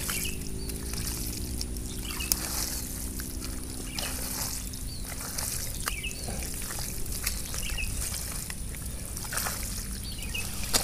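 Bare hands digging and squelching through soft, wet swamp mud, with scattered slaps and sloshes as the mud is scooped and probed for eels. A steady low drone fades out about halfway, and a bird chirps every couple of seconds.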